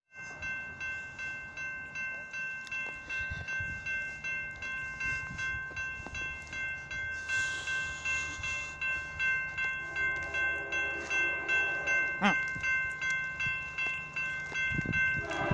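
Railroad grade-crossing bell ringing steadily, a little over two strokes a second. About ten seconds in, the horn of an approaching train sounds in the distance, getting louder near the end.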